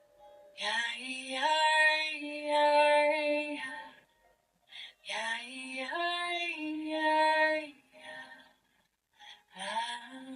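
A woman's voice singing a slow mantra in long held notes, in three phrases with short pauses between them.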